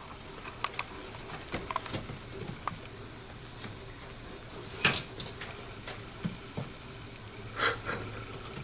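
Scattered light clicks and taps, with brief rustles about five seconds in and again near the end, over a low steady hum.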